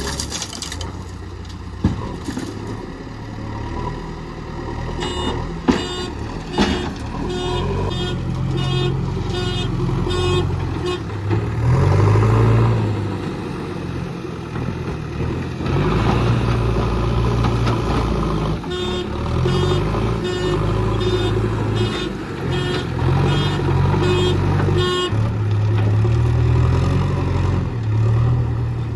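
Diesel engine of a JCB Eco Excellence backhoe loader working under load, revving up and down as it digs and loads. A reversing alarm beeps about twice a second in two stretches, and there are a few sharp knocks.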